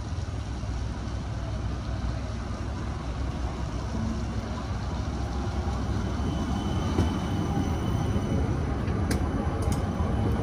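CAF light-rail tram approaching and passing close by: a steady low rolling rumble that grows louder as it nears. A thin high whine comes in about six seconds in, and a few sharp clicks sound near the end.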